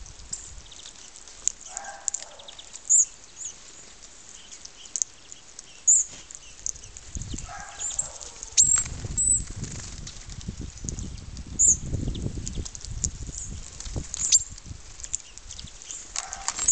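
Small birds calling with many short, high chirps and a few lower calls, with a ragged low noise through the middle.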